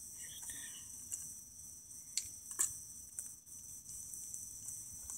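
Crickets chirping steadily in a thin, high pitch, with a few faint sharp clicks.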